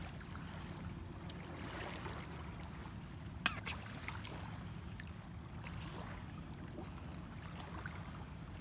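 Lakeshore ambience: a steady low rumble of wind on the microphone over gentle lake water lapping at a pebbly shore, with a single sharp click about three and a half seconds in.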